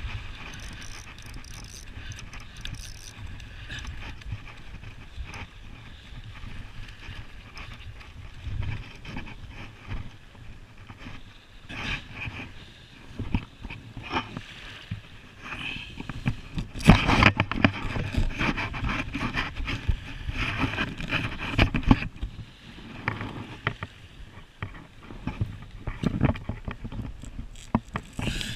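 A bluefish being landed and handled on a pebbly beach: irregular scraping and crunching on the gravel, loudest and busiest for several seconds past the middle, over a low wind rumble on the microphone.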